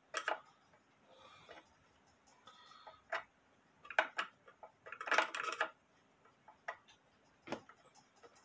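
Sharp clicks and light taps at uneven intervals, with faint rustling, from hands working at the hinged glass bezel of a drop dial clock. The clicks come singly and in a small cluster about five seconds in.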